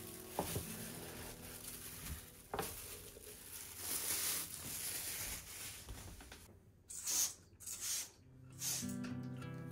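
Plastic glove and bag rustling against a stainless-steel sink, with a couple of light clicks as the drain basket and cover are handled. Near the end, three short hissing sprays from a trigger spray bottle.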